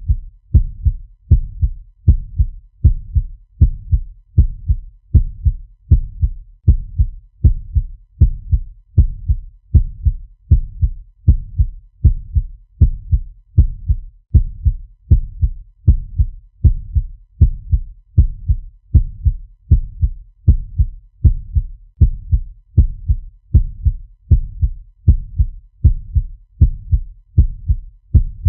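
Fast heartbeat sound effect: low, even lub-dub thumps repeating at about one and a half beats a second without a break.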